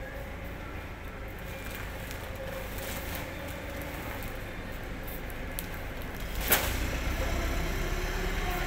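Steady rumbling background noise of a large warehouse, with one sharp knock about two-thirds of the way through.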